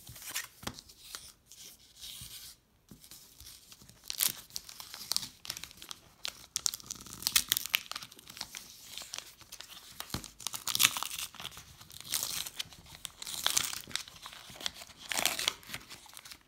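Foil trading-card booster pack wrapper being torn open and crinkled by hand: irregular ripping and crackling, louder and denser from about four seconds in.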